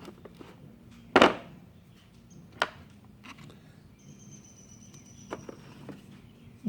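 Handling knocks and clicks as tools or their case are picked up and set down: a loud sharp knock about a second in, then a few lighter clicks. A faint steady hum sits underneath.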